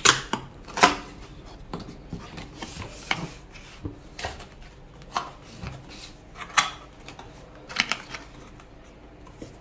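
Cardboard box being opened by hand: flaps rustling and scraping, with a handful of sharp taps and clicks of the cardboard at irregular moments.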